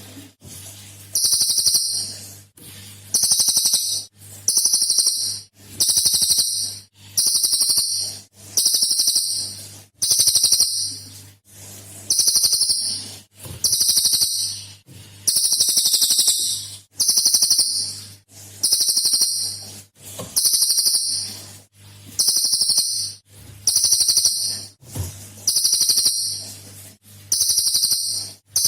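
Cililin songbird singing a rapid, high, rattling 'tembakan' phrase about a second and a half long, repeated over and over with short gaps, around sixteen times.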